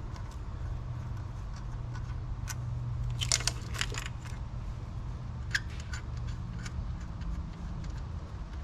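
Metal hand tools and loose bolts clinking and rattling while parts are being unbolted. There is a quick cluster of clinks about three seconds in and a few more a couple of seconds later, over a steady low hum.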